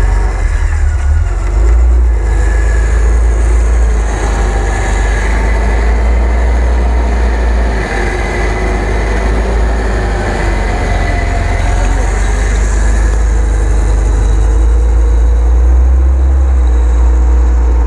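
UAZ-469 engine running with a heavy steady low rumble as the vehicle is winched forward through deep snow, its front wheels turning in the snow.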